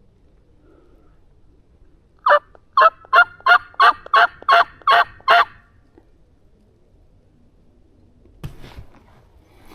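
Turkey hen yelps: a run of nine loud, evenly spaced yelps, about three a second, a couple of seconds in. A brief rustling scuffle follows near the end.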